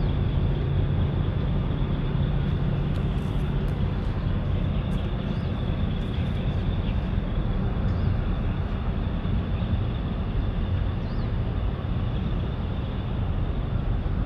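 Steady low rumble of outdoor harbour ambience, wind and distant engine noise, with a few faint high chirps now and then.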